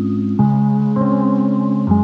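Background music: soft ambient keyboard chords, changing about every second.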